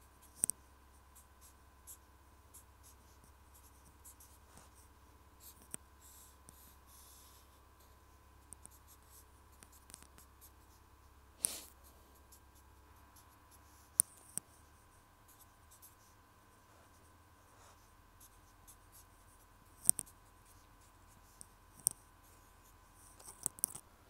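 Light handling sounds close to the microphone: scattered sharp taps and clicks, several of them in quick pairs, with a little faint scratching. A faint steady high tone runs underneath.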